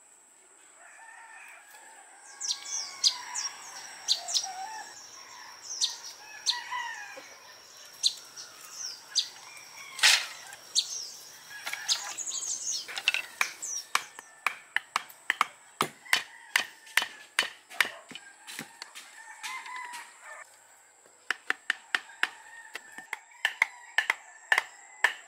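Chickens clucking and calling, with short bird-like chirps, over a steady high hiss. In the second half comes a long run of sharp, quick knocks from bamboo being hammered.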